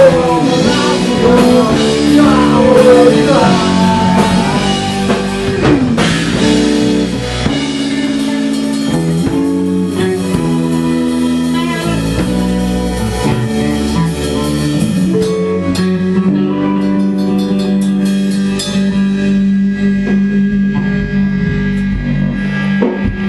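Rock band playing live in a small rehearsal room: drum kit, electric guitar and electric bass together. In the last third the high crash of the drums thins out, leaving long held guitar and bass chords ringing.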